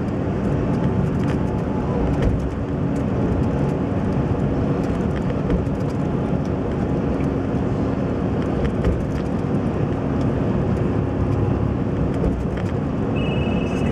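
Steady road and engine noise heard from inside a moving vehicle's cabin, an even rumble with a low hum. A short high beep sounds near the end.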